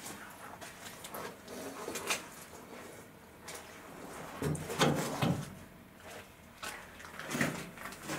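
Footsteps scuffing and crunching on a debris-strewn cellar floor, in scattered irregular steps, with the longest and loudest scrape about four and a half to five and a half seconds in.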